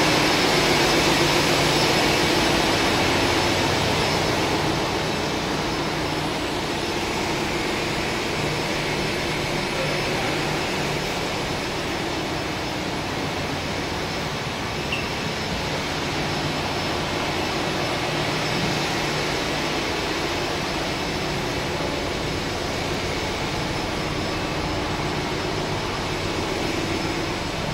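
Steady roar of a ship's engine-room machinery running, with a low hum under it; the roar eases slightly about four seconds in.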